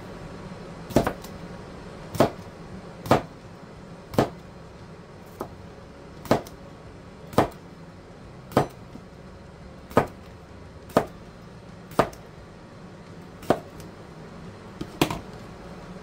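Cucumbers being cut on a cutting board: a sharp chop of the blade striking the board about once a second, a few of them doubled.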